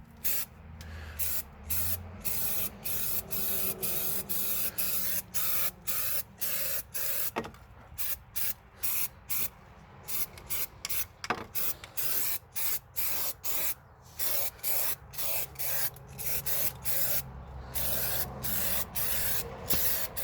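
Bed liner coating being sprayed in many short bursts of hiss, about one and a half a second, with brief gaps between them.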